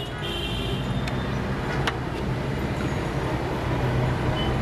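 Roadside traffic: a steady low engine rumble from vehicles, with a brief high tone near the start and a single sharp click about two seconds in.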